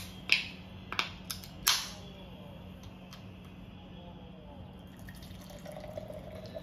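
A carbonated drink can opened: a few sharp clicks and snaps of the pull tab in the first two seconds, each followed by a short fizzing hiss. Near the end the fizzy drink starts pouring into a glass.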